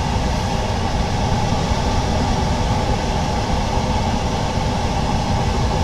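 Steady machine noise, a constant hum with a hiss over it, from workshop equipment such as a laminator's pump or a fan.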